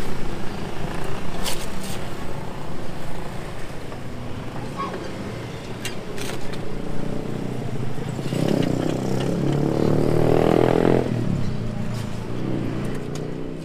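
Steady street traffic with a motorcycle engine passing close about eight seconds in, the loudest sound, lasting about three seconds. Earlier, a few sharp metallic clicks come from a wheel clamp being fitted to a parked car's front wheel.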